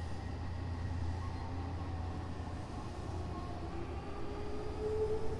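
Odakyu 8000 series motor car DeHa 8116 running, its IGBT-VVVF inverter and traction motors whining over a steady low rumble of the train on the rails. The whine rises in pitch through the second half as the train picks up speed.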